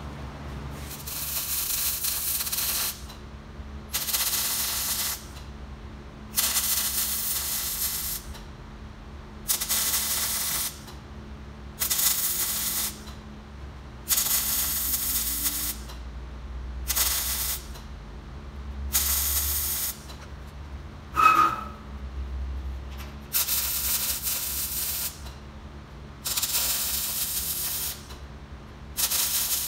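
MIG welder arc crackling and sizzling in about eleven short stitch runs of one to two seconds, with pauses between, as thin used drum sheet metal is welded; short runs keep the heat down so the arc doesn't burn through. A short, loud ringing clink about two-thirds of the way through.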